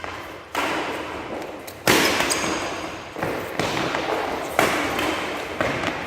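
Badminton racket strings hitting a nylon shuttlecock in a rally, about six sharp strikes roughly a second apart, each with a long echo fading after it.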